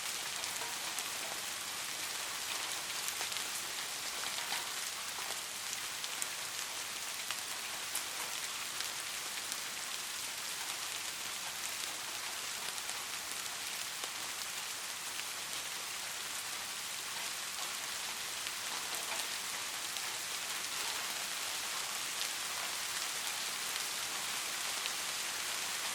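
Steady rainfall, an even hiss with many small raindrop ticks.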